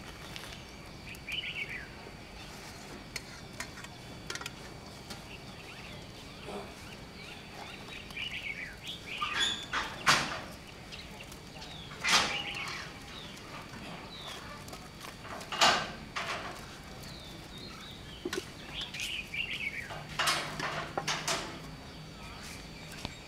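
Sharp clinks and knocks from monks' alms bowls as food is put into them and the lids are handled, about five in all and the loudest sounds, with small birds chirping throughout.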